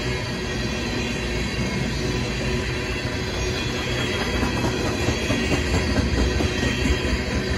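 Loaded tank cars of a freight train rolling past: a steady rumble of steel wheels on rail, with thin steady ringing tones above it, growing a little louder in the second half.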